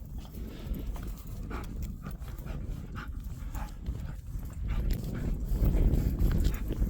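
Jindo dog panting and moving about, with wind rumbling on the microphone that grows stronger about five seconds in.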